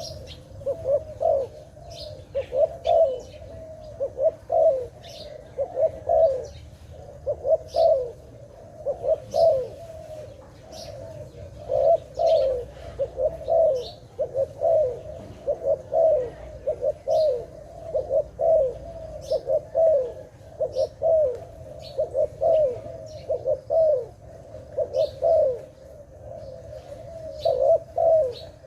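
A dove cooing over and over in quick clusters of short, low notes, with small birds chirping high and briefly in between.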